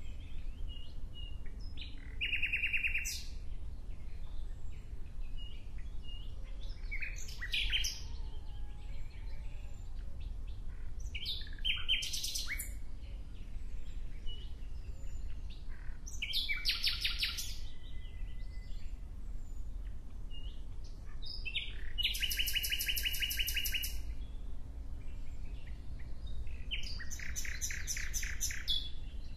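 A songbird singing short, rapid trilled phrases, about one every five seconds, over a steady low rumble.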